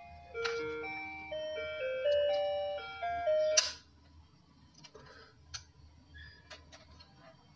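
Children's drawing projector toy playing its electronic tune, a simple melody of single beeping notes that stops with a sharp click about three and a half seconds in. After that, faint light clicks of the plastic projector head being handled.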